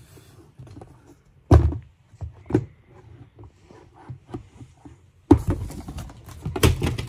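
Close handling noise from a phone camera: several dull thumps, the loudest about a second and a half in and again near the end, with rustling between them as the phone and plush toys are moved about.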